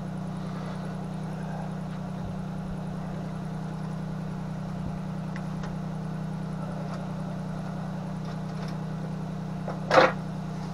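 Steady low mechanical hum, like an engine idling. A single sharp knock comes about ten seconds in.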